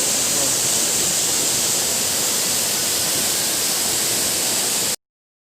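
Waterfall rushing: a steady, hissing wash of falling water that cuts off abruptly about five seconds in.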